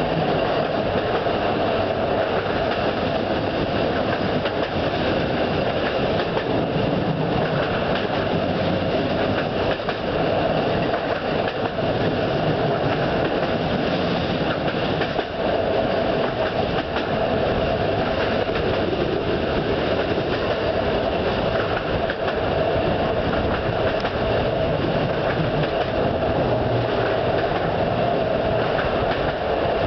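Passenger train running steadily along the line: a constant rumble of wheels on the rails with rushing air, heard from a carriage window, and a few faint clicks.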